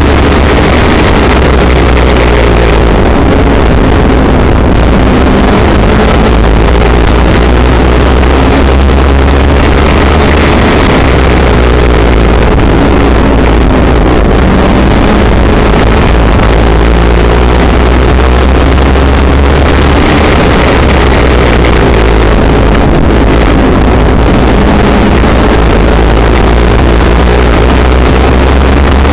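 Legends race car's Yamaha motorcycle-based four-cylinder engine running hard at racing speed, heard from inside the cockpit. It is loud and steady, and its pitch rises and falls in cycles several seconds apart, with wind rushing past.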